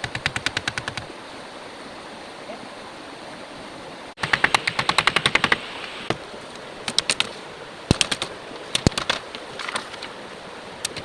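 Bursts of rapid, even clicking, about a dozen clicks a second, twice for a second or so, then scattered single clicks, over a steady rushing noise of rain or running water.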